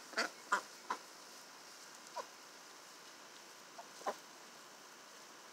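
Young Cayuga and Ancona ducks giving short quacking calls: three in quick succession in the first second, then single calls about two seconds and four seconds in, the later ones dropping in pitch.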